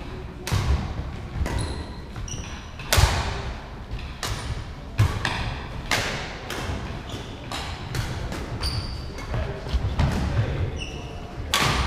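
Badminton doubles rally: racket strings hitting the feathered shuttlecock with sharp cracks about every second, echoing in the large hall. Short high squeaks of shoes on the wooden court and footfalls sound between the hits.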